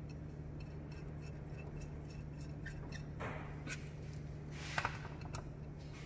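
Light metal clicks and clinks of a socket and turbocharger housing being handled on a steel workbench, with a short scrape about three seconds in and another brief one near five seconds, over a steady low hum.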